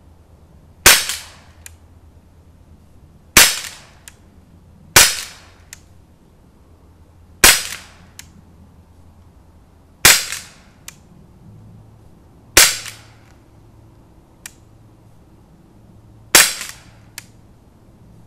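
Gamo P-25 CO2 air pistol fired seven times, sharp cracks two to four seconds apart that sound like a gunshot. Each crack has a short ringing tail, and most are followed by a much fainter tick.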